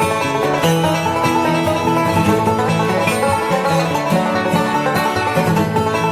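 Background music in a bluegrass style, led by a fast-picked banjo with guitar.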